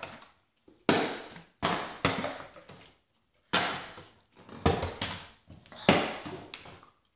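Small plastic water bottles being flipped and landing on a wooden tabletop: a series of sharp thuds, about eight in seven seconds, each with a short rattling tail as the bottle wobbles or tips over.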